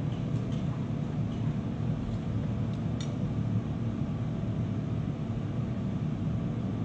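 Steady low roar of a glassblowing furnace burner, with a few faint clicks of a metal shaping tool against the hot glass.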